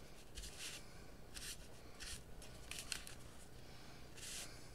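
Soft swishes of a mini iron's soleplate sliding over wax paper and a towel, about five short strokes a second or so apart, as the warm iron reseals the edges of the wax paper.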